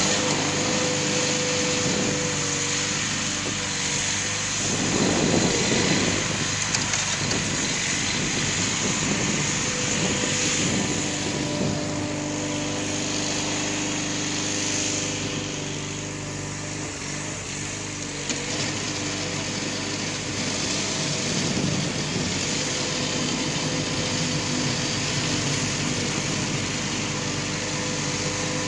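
Backhoe's diesel engine running steadily while it clears snow, with a louder, rougher stretch about five seconds in.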